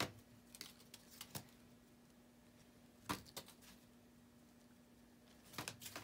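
A few quiet taps and clicks from a cat playing with a feather wand toy on a concrete floor, with a cluster near the end, over a faint steady hum.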